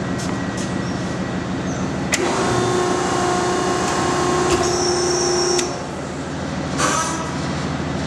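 Selco 72-inch high-density downstroke baler running on its hydraulic power unit, a steady machine hum. About two seconds in a higher whine joins the hum and drops away near six seconds, with a few sharp clicks along the way.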